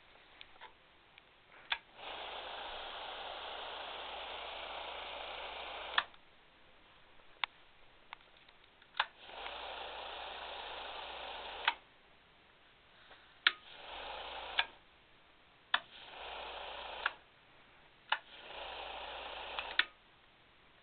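Toggle light switches clicking as they are flipped, turning a small electric motor on and off: the motor whirs steadily for a few seconds at a time, five runs in all, each started and stopped by a switch click, the later runs shorter.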